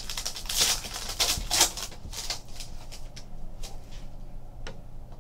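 Plastic trading-card pack wrapper crinkling and tearing as it is ripped open, followed by a few light clicks and rustles as the cards are handled.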